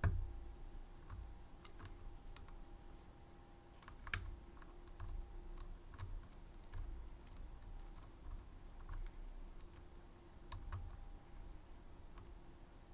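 Faint, irregular metallic clicks and ticks of a pick and tension wrench working the pins of a Medeco M3 six-pin high-security lock, with one sharper click about four seconds in.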